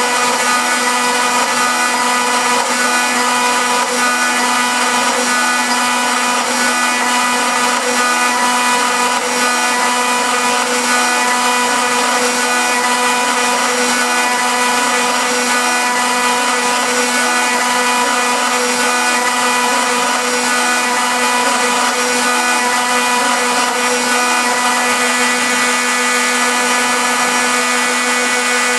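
CNC router spindle running at a steady high speed, a constant whine, while its small end mill engraves lettering into MDF.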